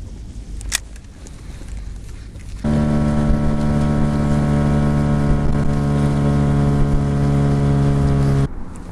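Wind on the microphone, then an outboard motor driving an inflatable boat under way. It cuts in suddenly about two and a half seconds in, runs at one steady pitch, and cuts off suddenly near the end.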